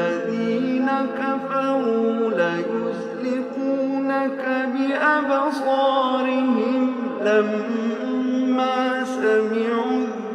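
A male reciter chanting Quran verses in Arabic in a melodic style, holding long notes with ornamented turns between them.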